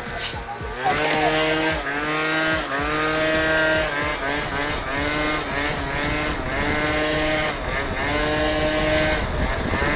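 Two-stroke engine of a Piaggio NRG Power 50 scooter, fitted with a DR 70 cc kit and an aftermarket exhaust. It revs up and drops back again and again, about once a second, as the throttle is worked to hold a kneeling wheelie.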